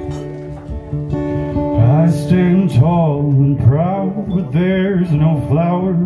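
Acoustic guitar playing a song, joined about two seconds in by a man singing into a vocal microphone.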